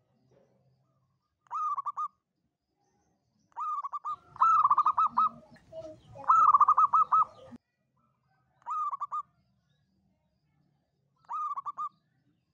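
Zebra dove (perkutut) cooing: six short phrases, each a quick run of staccato notes at one pitch, spaced a second or more apart. The two phrases in the middle are the loudest and have a low rumble beneath them.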